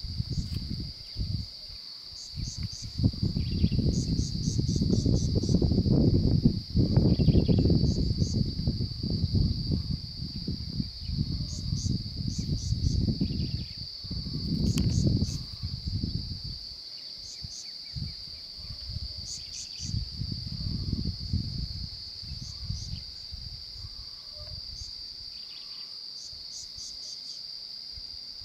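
A steady, high-pitched insect drone, with small clusters of short high chirps every second or two. A gusty low rumble, like wind on the microphone, comes and goes over it and is loudest through the first half and again around twenty seconds in.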